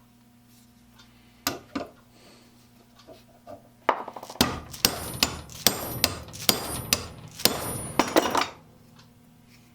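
Metal being hammered: two light knocks, then a quick run of about a dozen sharp blows, each with a high metallic ring.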